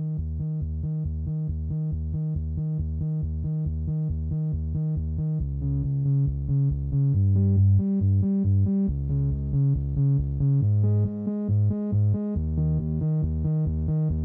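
Electronic synthesizer music with a steady pulsing beat and a bass line that shifts pitch several times.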